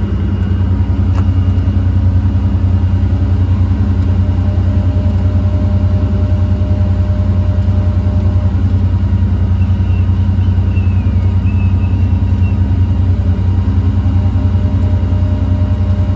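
Hydraulic air compressor on a service truck body running and pumping air, driven off the truck's running Cummins diesel: a steady low drone with a fast, even pulse.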